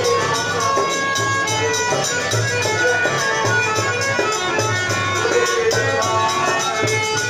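Harmonium playing a devotional folk bhajan melody in held reedy notes over a steady dholak beat, with a high jingling percussion ticking in time.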